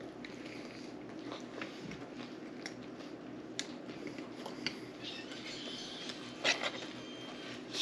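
A person chewing a bacon cheeseburger close to the microphone: soft wet mouth clicks and smacks over a steady low hum, with a louder sharp noise about six and a half seconds in.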